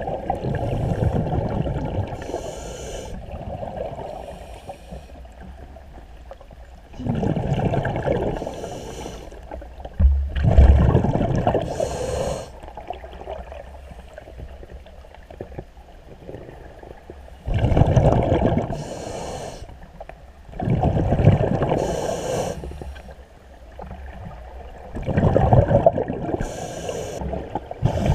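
Scuba diver breathing through a regulator underwater: bursts of exhaled bubbles every few seconds, each with a hiss of drawn air, in a slow regular rhythm.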